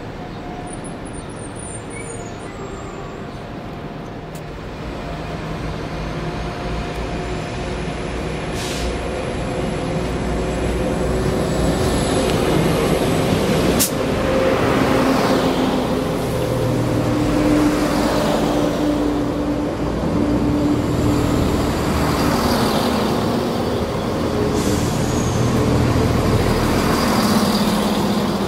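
Chiltern Railways Class 168 Turbostar diesel multiple unit moving along the platform close by: the steady hum of its underfloor diesel engines and the rumble of its wheels grow louder over the first ten seconds and then hold. There is a single sharp click about 14 seconds in.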